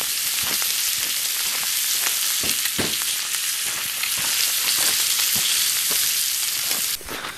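Ribeye steak frying in butter: a steady sizzle with scattered sharp pops and crackles, which stops abruptly near the end.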